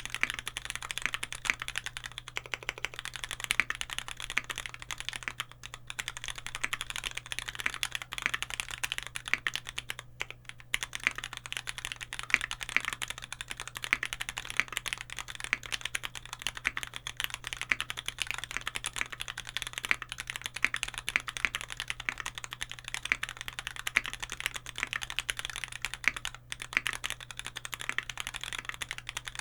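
Continuous typing on a Keycult No.2 custom mechanical keyboard: lubed Cherry MX Nixie linear switches with 68 g springs, in a gasket-mounted aluminium-plate case under GMK keycaps. A dense, even run of keystrokes, with brief pauses about ten seconds in and near the end.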